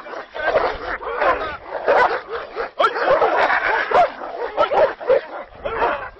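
Two large dogs fighting, with a dense, continuous run of short barks and cries over one another. There is a brief lull near the end.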